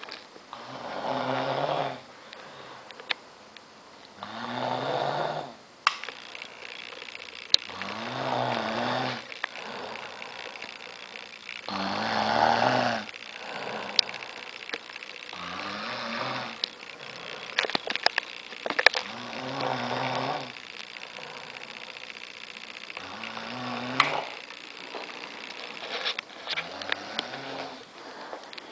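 A man snoring in deep, regular breaths, one snore about every three to four seconds, eight in all.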